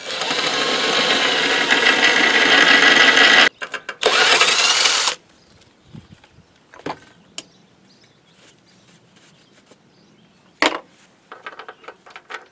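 Cordless drill with a 17/64-inch twist bit drilling through the metal mower deck: a steady whine for about three and a half seconds, a short pause, then about another second of drilling before it stops. Afterwards a few light knocks and taps, one sharper knock near the end.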